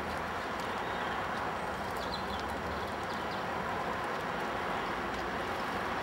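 Steady outdoor background hiss with no clear source, with a few faint high chirps about two seconds in and light scattered ticks.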